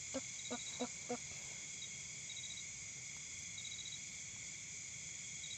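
Night insect chorus, mostly crickets: a steady high shrill, with one cricket's short pulsed trill repeating every second or two. A few brief voice syllables in the first second.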